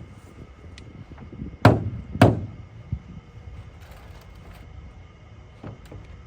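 Two loud thuds about half a second apart as a rubber mallet knocks storage-shed parts into place, followed by a few lighter knocks.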